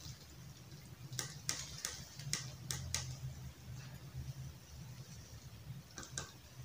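A ladle clinking against a glass serving bowl and the cooking pan while curry is spooned out: a run of light clicks in the first half, then two more near the end, over a faint low hum.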